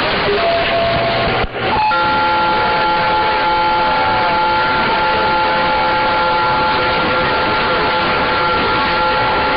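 CB radio static with several steady heterodyne whistles from carriers keyed on the channel, held at once over the hiss. The signal drops out briefly about one and a half seconds in, and the tones set in about two seconds in.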